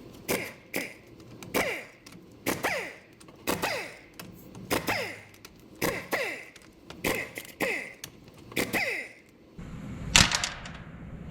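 A power tool backing out the bolts of a front differential cover in about nine short bursts roughly a second apart. Each burst starts with a click, and its whine falls in pitch as it winds down. One loud clunk comes near the end.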